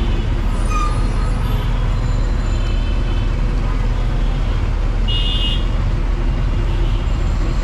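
Steady street traffic rumble, with a short high-pitched horn toot about five seconds in.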